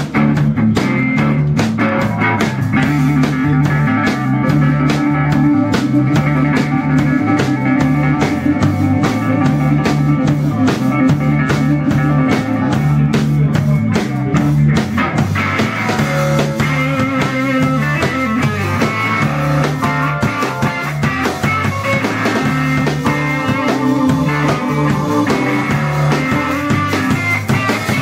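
A live band playing an instrumental passage: archtop electric guitar, keyboard and a small drum kit keeping a steady beat over a bass line.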